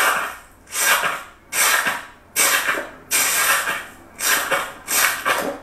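Foamy, air-filled slime pressed again and again with a metal tool, about seven rhythmic presses in a row, each a rough hissing crackle lasting about half a second. A bit too loud.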